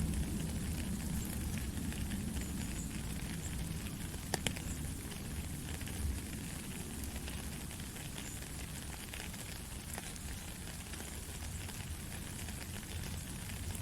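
Steady rain falling: an even hiss with a few sharper ticks of drops scattered through it.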